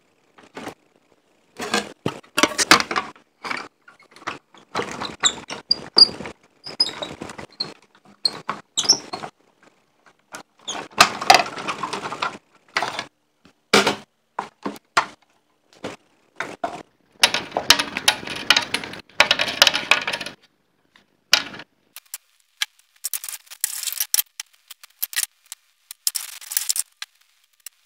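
Manual hand-cranked die-cutting machine in use: sharp clicks and knocks as the cutting plates and wooden die tray are handled and set in place, and three stretches of continuous rough noise of a few seconds each as the crank rolls the plate stack through the machine.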